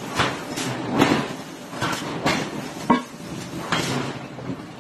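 Irregular heavy metal clanks and knocks, about six of them with short ringing tails, the sharpest about three seconds in, as a red-hot iron block is handled on steel in a forge.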